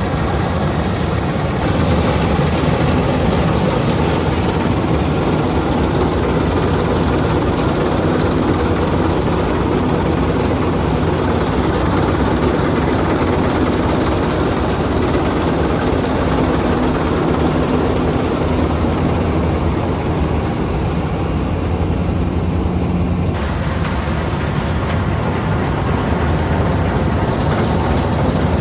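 Heavy farm machinery's diesel engine running steadily and loudly. The sound changes abruptly about 23 seconds in.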